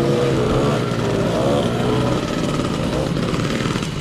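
Two-stroke moped engines running, their revs rising and falling.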